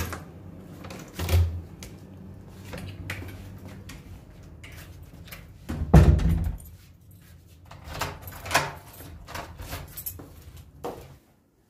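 Wooden door being shut hard, a loud bang about six seconds in and the loudest sound, amid clicks and rattles of its metal lever handle and latch before and after.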